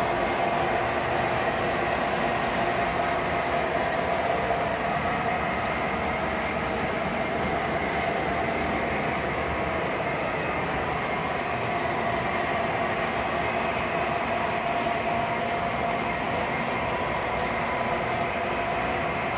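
O gauge model freight train pulled by four MTH Premier diesel locomotives running steadily on the layout: a continuous rolling rumble of wheels on track with a steady hum.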